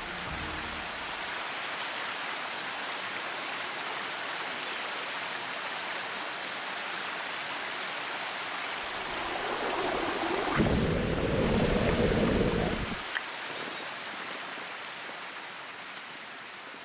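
Small rocky mountain stream flowing steadily over stones. About nine seconds in, a louder, lower rush lasts for about four seconds, then the stream carries on alone and fades slightly near the end.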